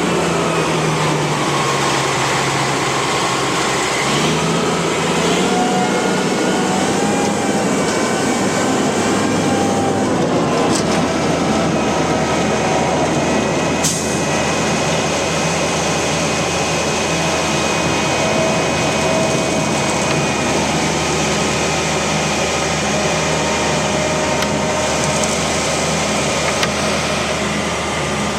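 Cat C-10 inline-six diesel engine of a Kenworth T800 concrete mixer truck running. Its speed sags a little over the first few seconds, picks up about four seconds in, then holds steady.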